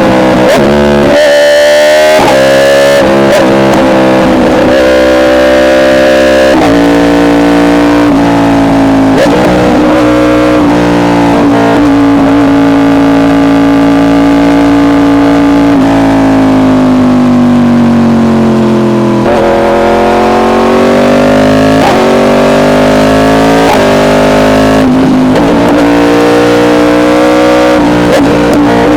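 Yamaha R1 inline-four with an SC Project exhaust running at high revs under way. It holds a steady note for about ten seconds, falls in pitch for a few seconds as it slows, then picks up again with a rising note.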